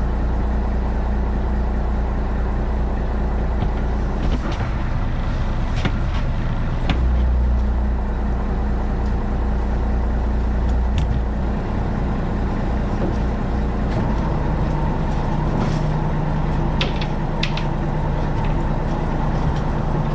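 Truck engine running steadily, its hum shifting in pitch twice, with a few scattered clicks and knocks.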